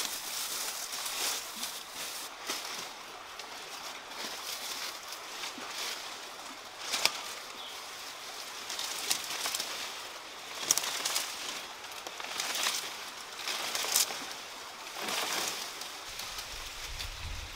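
Leaves rustling and crackling as a banana plant's leaves, dry ones among them, are handled and pulled. The noise comes and goes in swells, with a few sharp snaps spread through it.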